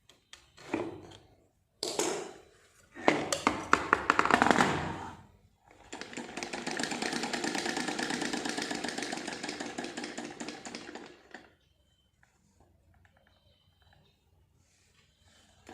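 Sewing machine being turned by its hand crank on a test run, checking whether it now turns freely after the handle setting was corrected. It gives a few short spells of rapid clatter, then about five seconds of steady running that stops a few seconds before the end.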